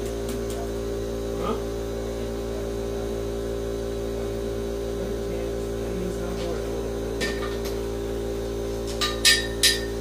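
A steady hum runs throughout. About seven seconds in there is a faint clink, and near the end three sharp metal clinks come in quick succession, from the engine hoist and its chain with the engine and transmission hanging on it.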